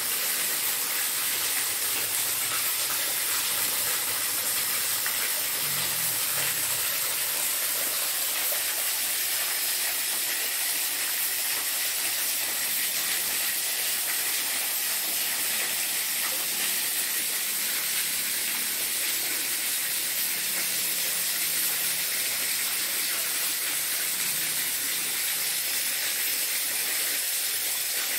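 Steady high-pitched hiss of night-time tropical forest ambience, unbroken and even throughout, with a few faint steady high tones in it.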